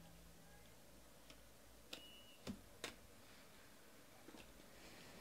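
Near silence with a few faint clicks of baseball cards being sorted by hand and set down on stacks, three of them close together between about two and three seconds in.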